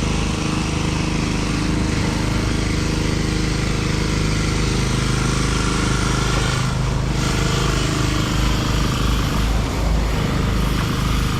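An engine running steadily at an even pitch, close by and continuous.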